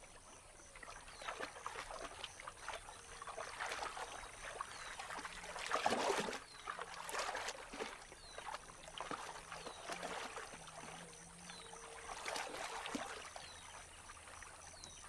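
Capybara wading and rooting through shallow muddy water for water plants: irregular splashing and sloshing, loudest about six seconds in.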